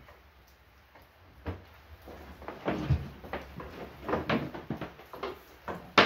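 Scattered knocks and clicks, with a dull thump about three seconds in, as a small electric melting furnace and its power cable are handled on a wooden workbench.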